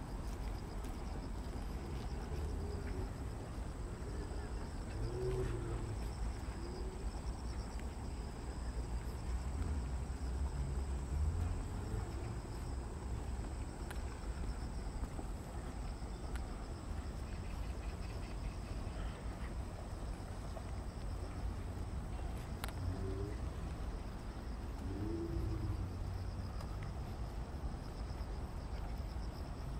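Insects chirping steadily, a fine high pulsing trill, over a low outdoor rumble.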